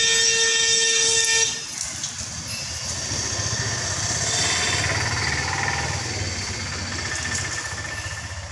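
A vehicle horn sounds one long steady note, then a motor vehicle passes with a low rumble and road noise that swell about halfway through and slowly fade.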